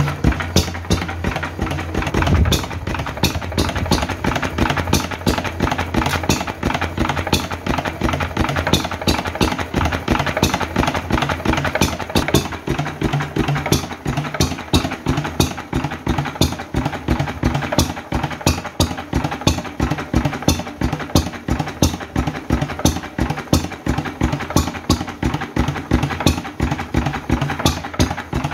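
Lister 3 hp side-valve stationary engine running steadily, a rapid even beat of firing strokes.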